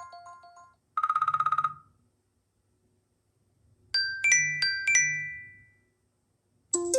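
Stock iPhone ringtones playing one after another. A bell-like melody fades out, then a short, fast-pulsing trill sounds. After a pause comes a brief chime of a few quick struck notes that ring away, and a new tone starts near the end.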